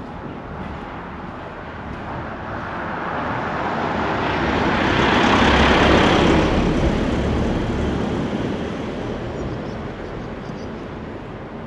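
A car driving past: tyre and engine noise swelling to a peak about six seconds in, then fading away.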